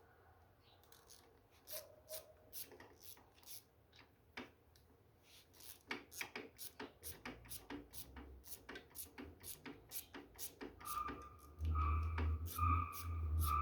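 Hand tools working on a Honda CG 125 Titan's clutch: scattered metal clicks, then a fast, even run of clicks. A louder humming sound comes in near the end.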